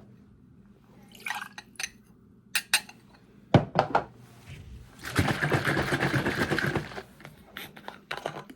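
A drink being poured into a glass for about two seconds, midway through, between short clinks and clicks of the glass and bottles being handled.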